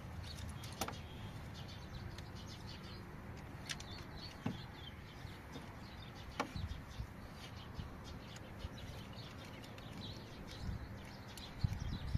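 Small birds chirping on and off, with a handful of sharp clicks and knocks from hand-tool work at a car's bare rear wheel hub.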